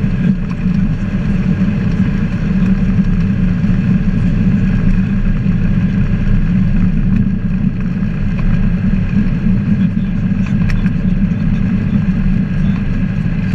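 Ikarus C42B ultralight's engine and propeller running steadily at an even pitch, heard from the cockpit as the aircraft rolls along the runway.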